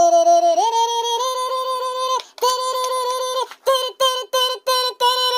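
High-pitched vocalizing: a held note that steps up in pitch about a second in and holds, then after a short break a longer note followed by about six short clipped notes on the same pitch near the end.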